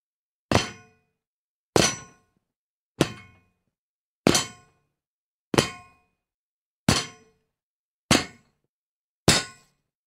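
A metal gate clanging as someone jumps onto it, eight separate impacts about one and a quarter seconds apart, each ringing briefly before dying away.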